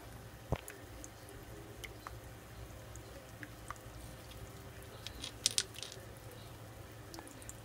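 Three-toed box turtle's claws and shell clicking on river stones as it walks, over a low steady hum. There is a single knock about half a second in and a quick cluster of clicks about five and a half seconds in.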